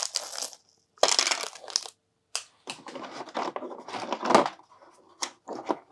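Plastic component bags crinkling and rustling as they are handled and opened, in a string of short bursts with brief pauses between.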